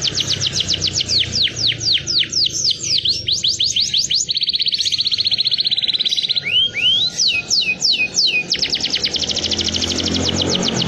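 Domestic canary singing a long, continuous song. It runs as rapid repeated falling whistles, then a fast, even trill near the middle, then a few lower swooping notes, and back into quick falling whistles.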